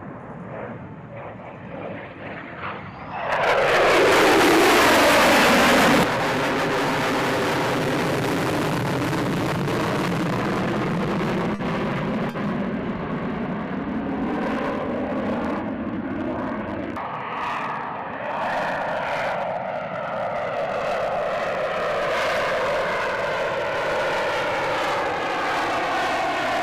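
F-35B Lightning II's single F135 turbofan jet engine during flybys: building about three seconds in to a loud pass whose pitch drops steeply as the jet goes by, then, after an abrupt edit, a steady jet roar with a slowly shifting, phasing tone as the jet manoeuvres and climbs.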